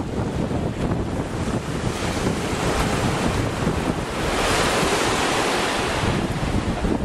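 Wind buffeting the microphone over the sea, with a wave's hiss swelling about two and a half seconds in and fading away just before the end.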